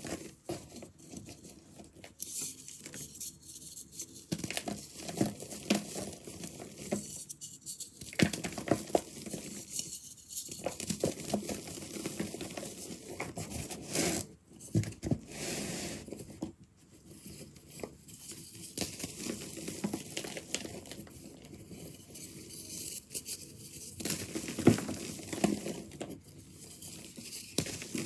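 Hands crushing dry, crunchy reformed powder blocks: crisp, irregular crunching and crackling as the blocks break apart, with the soft rustle of crumbs and powder falling through the fingers.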